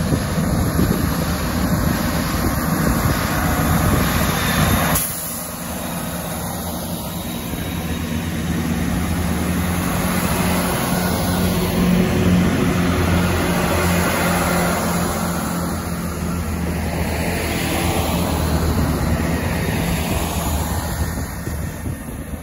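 Class 166 Networker Turbo diesel multiple unit moving through the platform, its diesel engines running with a steady low drone. The sound changes abruptly about five seconds in, then the drone builds as the coaches pass close by.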